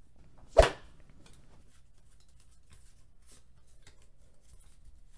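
A single sharp knock about half a second in, then faint scattered ticks and rustles of a stack of Pokémon trading cards being handled and shuffled by hand.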